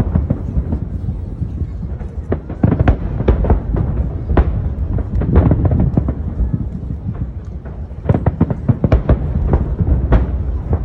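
Fireworks going off in quick succession: many sharp bangs and crackles over a continuous low rumble, with a dense cluster of bangs about eight seconds in.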